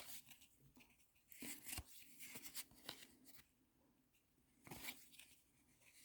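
Faint rustling and scraping of trading cards and their pack wrappers being handled, in a few short spells.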